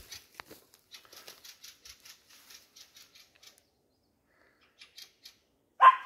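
Footsteps crunching through forest-floor undergrowth at a quick, even pace of about four a second, stopping about halfway. Just before the end, a puppy gives one short, loud bark.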